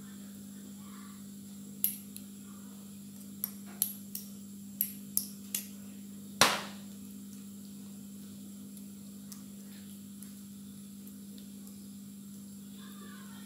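A spoon and small ceramic bowl clinking against a glass baking dish and steel counter: a run of sharp clinks in the first half, the loudest about six seconds in, then only a steady low hum.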